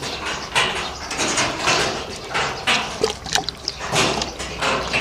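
Scuffling and rustling in a cattle pen, an uneven run of noisy strokes about two a second, as a coughing calf is caught and held for drenching.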